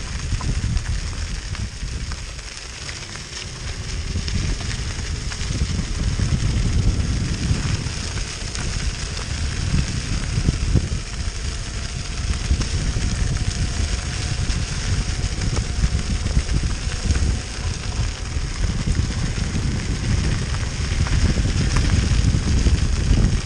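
Electric mountainboard rolling over a gravel path: its tyres crunch and crackle on the loose stones over a steady low rumble.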